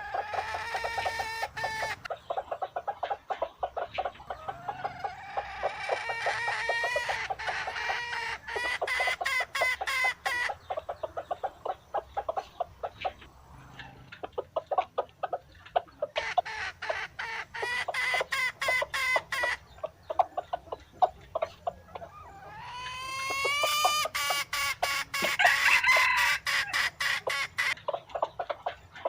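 Dong Tao chickens clucking in rapid runs, with several long, drawn-out calls rising over the clucking, loudest in the last third.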